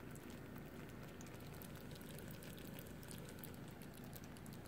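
Faint scattered pops and crackles of chicken karahi gravy still bubbling in the hot wok after the flame is turned off, over a low steady background rumble.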